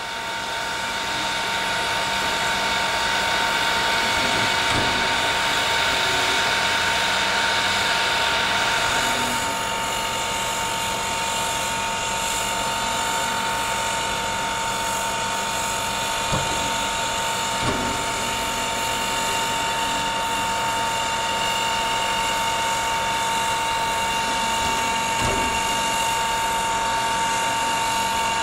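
Reading & Northern 425, a 4-6-2 Pacific steam locomotive standing at rest: a steady hiss and a high steady whine, with a few metallic clanks. The upper hiss eases about nine seconds in.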